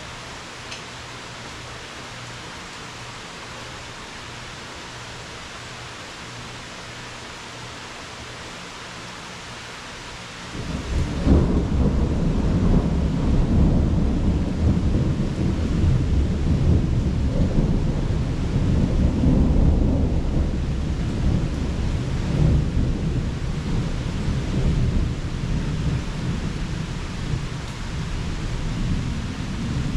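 Steady rain hiss, then about ten seconds in a long, deep roll of thunder breaks in and rumbles on, slowly easing.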